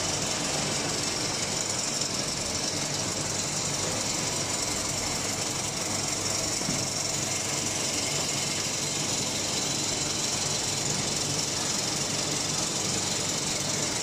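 Metal-shavings briquetting line running: steady, dense mechanical noise from the chip conveyor and hydraulic briquetting press machinery.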